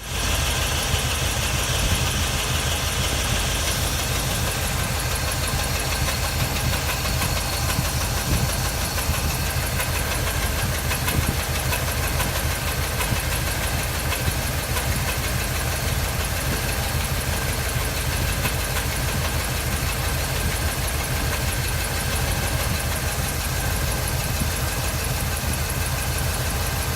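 International Harvester 345 V8 engine running steadily, with an erratic knocking and banging that starts about six seconds in, then fades out and comes back. The cause is unknown to the owner: it typically sets in after about five minutes of running.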